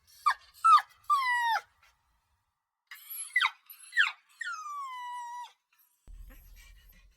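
Puppy crying: high whimpering whines, three close together, then after a pause two short cries and a long whine that falls in pitch and then holds. A faint low hum follows near the end.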